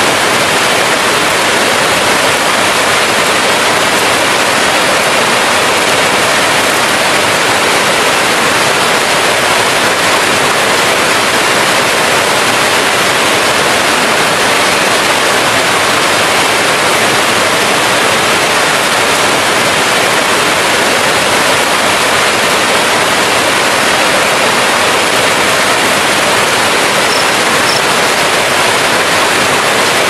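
Waterfall: a steady, unbroken rush of falling water at an even level throughout.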